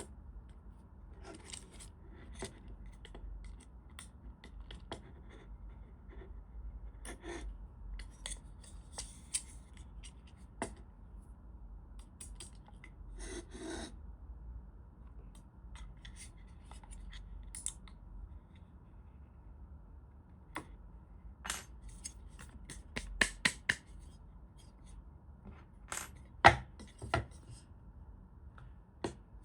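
Hands fitting a palm rest to a split keyboard: scattered small clicks, taps and rubbing scrapes, with a cluster of sharper, louder clicks in the last third.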